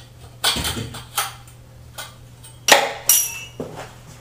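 Metal shower curtain rod and its metal end brackets being handled, knocking and clinking: a few sharp metallic clanks, the loudest about two and a half seconds in, followed by a brief ring. A steady low hum runs underneath.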